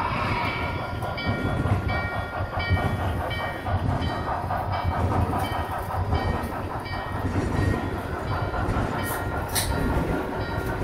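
Model train passenger cars rolling past on layout track, their wheels making a steady rumble. A short high tone repeats about three times a second until about seven seconds in, and a couple of sharp clicks come near the end.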